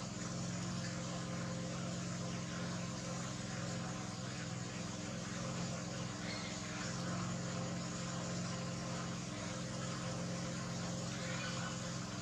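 A steady low mechanical hum with a constant hiss over it, unchanging throughout.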